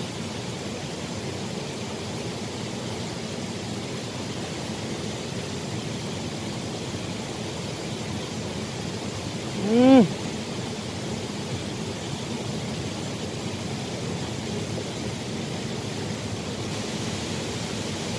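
Steady rush of a small stream's flowing water. About ten seconds in, one short call rises and falls in pitch, the loudest moment.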